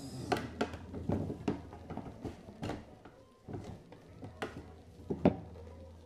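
Plastic clicks and knocks from a Britânia Fortis blender's jar and lid being handled: the lid is worked on the jar and the jar is moved about. The loudest knock comes about five seconds in.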